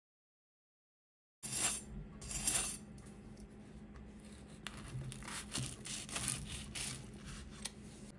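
A knife cutting through a crisp, pan-toasted tortilla wrap folded over an egg filling. After about a second and a half of silence come two loud crunches, then a run of short crisp crackles as the blade works through the crust.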